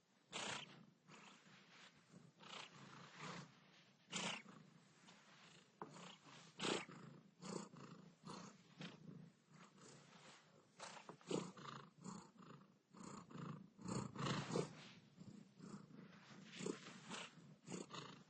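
Domestic cat washing its face: a quick, irregular run of wet licks over a steady, low purr.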